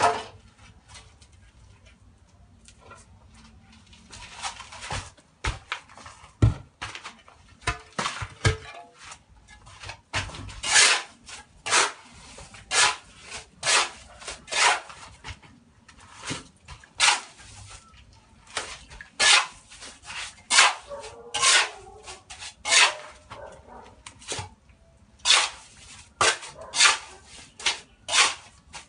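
A dog barking over and over, single barks in irregular runs of about one a second, beginning a few seconds in.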